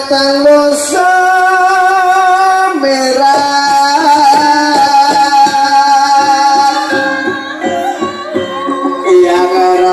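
Gamelan accompaniment for an ebeg (kuda lumping) dance: a singer holds long, slightly wavering notes over a busy run of percussion strikes.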